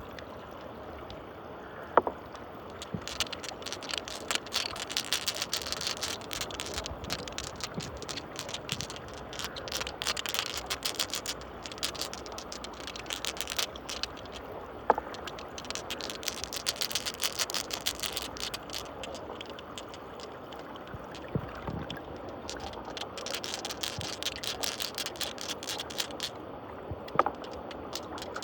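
Water swirling in a whirlpool with glass marbles carried round in it, clicking and rattling against one another in a dense patter, with a few sharper single clicks about two seconds in, halfway through and near the end.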